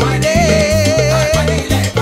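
Salsa music played by a band: a pulsing bass line under a long, slightly wavering held note that lasts about a second.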